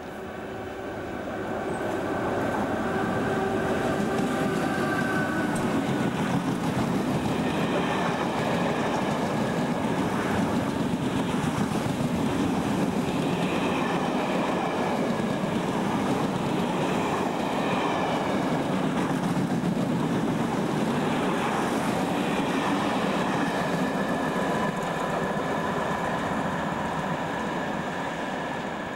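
Passenger train passing through a station at speed: a steady rumble of wheels on rail that builds over the first few seconds, holds while the coaches run by, and fades near the end, with thin high whining tones over it at times.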